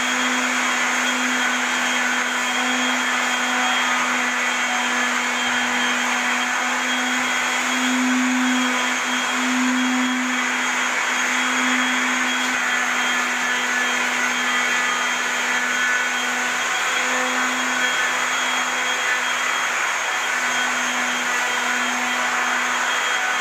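Steady machine noise from a small electric motor running without a break: an even hum with a hiss above it.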